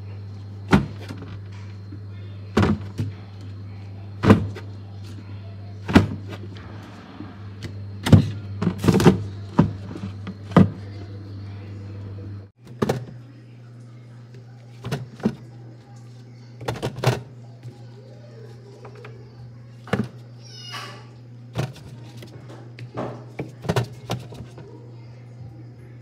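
Irregular knocks and thuds of produce and plastic-bagged vegetables being set into a refrigerator's plastic crisper drawer, over a steady low hum.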